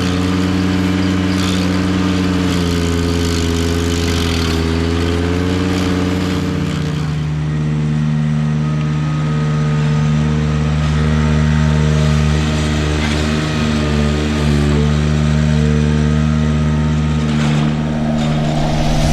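Ventrac compact tractor running its KC220 stump grinder attachment, the engine held at steady high speed while the rotor chews into a stump; the engine note shifts about seven seconds in as the load changes.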